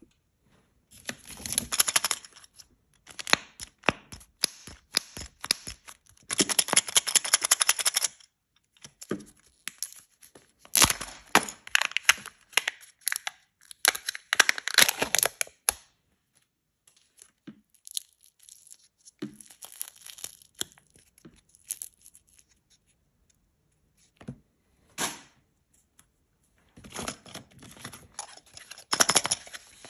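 Kinder Joy egg wrappers being torn and peeled open by hand, crinkling and tearing in several bursts with sharp clicks and snaps between them. Through the middle-to-late part there is a quieter stretch with only a few isolated ticks.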